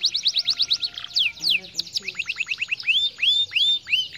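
Canary singing: a fast trill of sweeping notes, about ten a second, that changes about two seconds in to a slower series of curved whistled notes.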